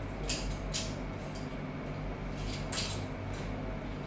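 A handful of short metallic clicks and clinks from a chrome-molybdenum locking C-clamp and steel bar being handled just after the clamp is released, over a steady low hum.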